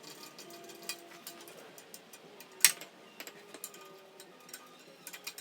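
Irregular clicks and light metal taps of hand tools and fasteners being worked on a motorcycle, with one sharp, much louder click a little past halfway through.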